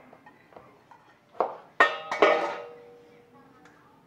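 A knife clinking against metal cookware: a few sharp clinks about one and a half to two seconds in, the last of them ringing on for about a second.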